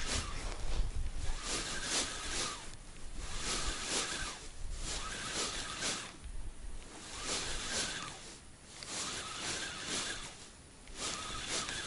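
Spinning reel being cranked in short bursts during a lure retrieve, a whirring that recurs every second or two over a steady hiss.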